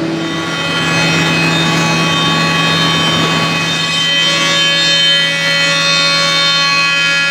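Band sawmill running through a cut: a steady, high-pitched blade whine over the hum of the mill's motor.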